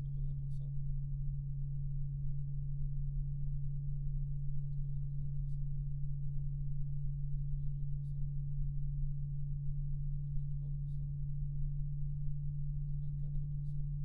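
Arctic P120 PWM 120 mm PC fan running at high speed: a steady low hum carrying one strong pitch, over a faint rush of air, with a few faint high ticks.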